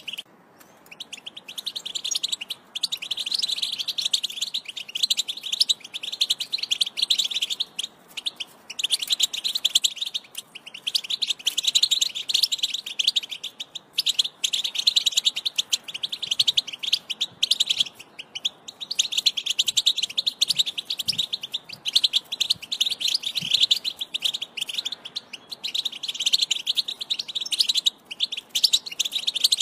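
European goldfinch singing a fast, high twittering song in the Wedani style. The song comes in long phrases broken by short pauses.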